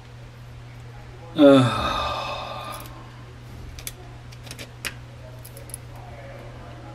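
A man's loud sigh about a second and a half in, the voice falling in pitch as it trails off. It is followed by a few small sharp clicks of a small screwdriver and screws working at a plastic earpiece housing, over a steady low hum.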